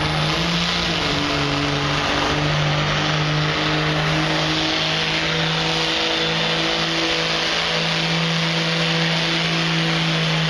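Diesel pickup truck's engine at full throttle under heavy load, pulling a weight-transfer sled, held at a steady high pitch with slight wavering.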